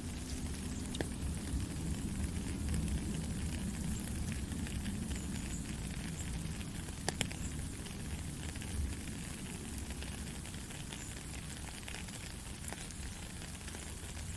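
Heavy rain falling steadily, a dense hiss with a low rumble underneath and a few sharp drop clicks, two of them a few seconds apart.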